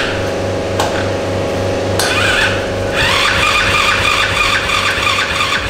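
Small ATV engine turning over on its electric starter, fed through jumper cables because its own battery is dead, with a regular pulsing beat. About three seconds in it changes to a faster, steady rhythmic running sound.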